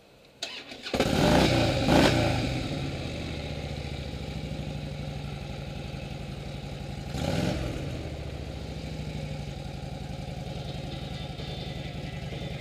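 2008 Harley-Davidson Ultra Classic's Twin Cam 96 V-twin engine starting. A click sounds about half a second in, and the engine catches about a second in with two quick revs. It then settles into a steady idle, with one more throttle blip about seven seconds in.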